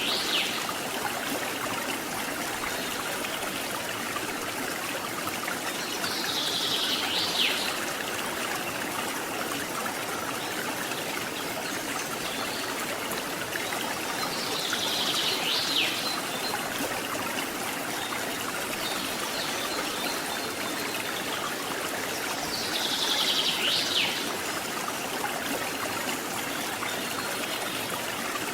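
Waterfall and stream water rushing steadily. A short high buzzing call ending in a quick downward sweep repeats four times, about every eight seconds.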